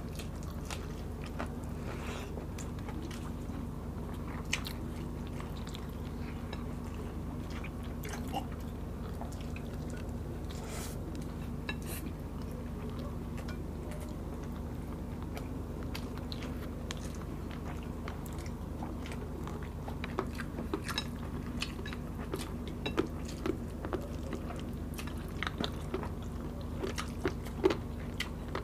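Close-miked chewing and biting of braised chicken adobo and rice, with scattered small wet mouth clicks that come more often in the last third. A steady low hum runs underneath.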